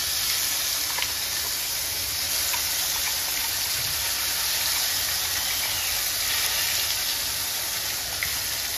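Onion paste sizzling steadily as it goes into hot oil with cumin seeds in a nonstick kadai, with a few light clicks of a spoon scraping the paste out of a steel bowl.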